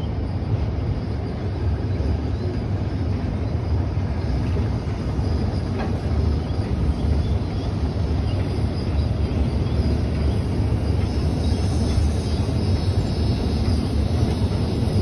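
Steam-hauled train rolling across a steel trestle bridge: a steady, heavy low rumble.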